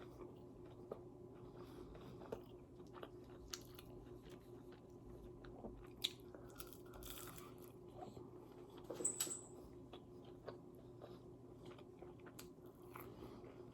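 Close-up eating sounds: biting and chewing fast food, soft crunches and mouth clicks at scattered moments over a faint steady hum, with a louder cluster of crunches about nine seconds in.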